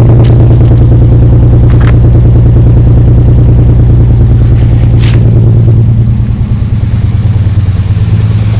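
Nissan 300ZX's non-turbo 3.0-litre V6 running loudly and steadily; about six seconds in it gets quieter and its sound changes, with a few brief sharp clicks along the way. The engine has a knocking noise that the owner takes for a worn crankshaft (rod) bearing.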